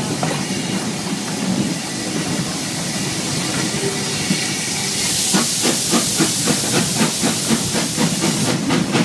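Small steam locomotive heard from the wagon right behind it: a steady hiss of steam, then about five seconds in its exhaust starts chuffing in even beats, about three a second.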